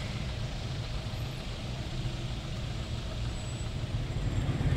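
Opel Kadett C's engine running with a low, steady rumble as the car creeps forward in street traffic, getting louder near the end.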